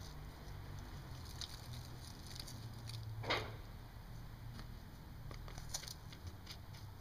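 Barred Rock hen dust bathing in loose dirt: faint scattered patter and crackle of dirt and feathers as she shuffles and digs, with one louder brief rustle about three seconds in.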